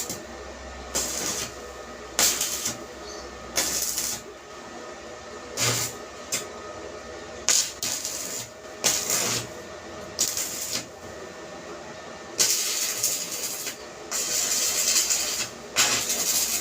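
Repeated scraping strokes of a hand tool worked against a surface, coming at an irregular pace of roughly one a second, with longer strokes near the end.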